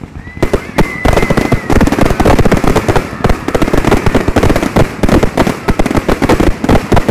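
Fireworks display going off in a dense barrage: rapid, overlapping bangs and crackle from aerial shells bursting, starting about half a second in and running on without a break. A thin high whistle sounds through the first second and a half.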